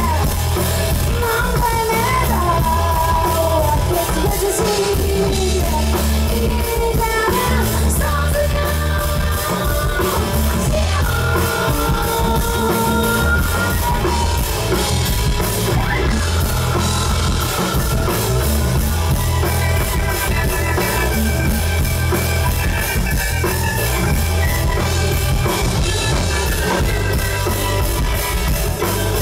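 Live rock band playing loudly, with a woman singing the lead vocal over drums and bass.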